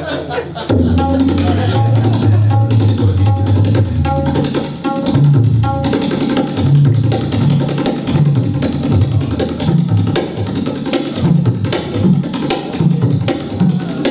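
Tabla played in a fast, dense rolling rhythm that imitates a train's carriages running over the rails. The bayan's deep bass strokes swell and bend in pitch under rapid strokes on the treble drum.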